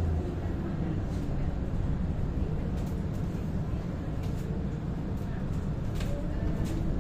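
Running noise of a moving tram heard from inside the car: a steady low rumble from the wheels and running gear on the rails, with a faint gliding hum and a few light clicks and rattles in the second half.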